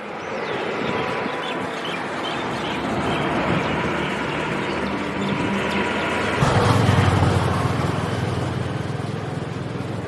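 Road noise of a vehicle driving along a highway: steady rushing of tyres and engine. About six and a half seconds in, a louder low engine hum comes in suddenly, then fades over the following seconds.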